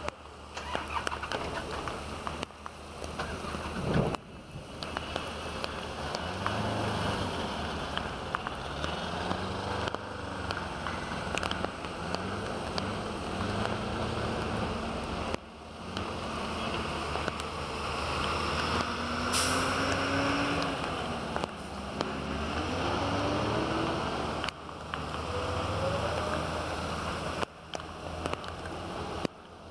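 Car engines revving up and down as vehicles push through deep floodwater, over a constant wash of water and rain.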